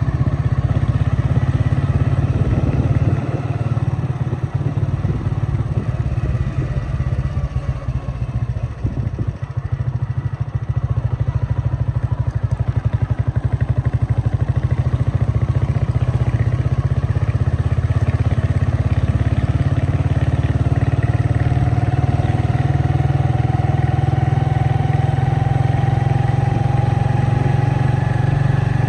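A motor vehicle engine running steadily close by, with a dense, even low pulsing. In the last third a faint whine rises slowly in pitch.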